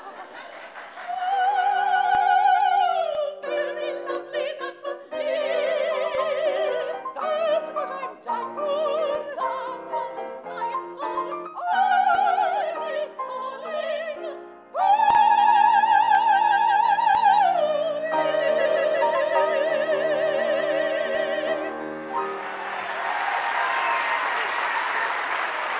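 Two operatic sopranos singing with wide vibrato to piano accompaniment, the phrases closing on long held high notes. An audience breaks into applause near the end.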